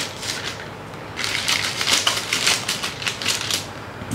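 Parcel packaging being torn open and handled, with a dense run of crinkling, crackling noise from about a second in until near the end.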